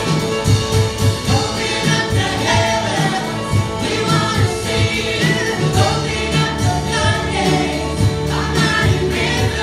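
Live worship band playing a contemporary worship song, with electric guitars, bass, drum kit and keyboard under sung vocals, over a steady drum beat.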